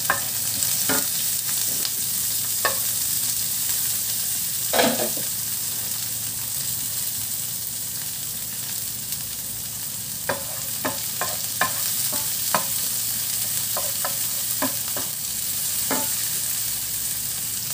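Ginger, garlic and spring onion sizzling in hot oil in a frying pan, a steady hiss. A wooden spoon stirs them, knocking and scraping against the pan now and then, once more loudly about five seconds in and in quick runs near the end.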